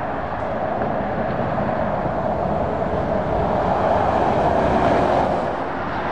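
Road traffic on a dual carriageway: a steady rush of tyre and engine noise from passing lorries and cars, swelling to its loudest about four to five seconds in as a vehicle goes by.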